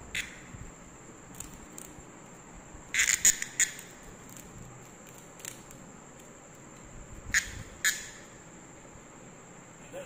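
Cicada: a thin, steady high-pitched buzz, broken twice by short, loud rasping bursts about three and seven seconds in.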